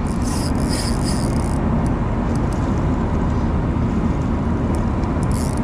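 Steady low rumble of a fishing boat's engine running, with a hiss of higher-pitched noise through the first second and a half.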